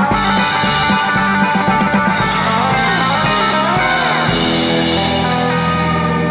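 Rock band music: guitar over drum kit. About four seconds in, the drums drop out and a held guitar chord rings on with wavering, gliding notes.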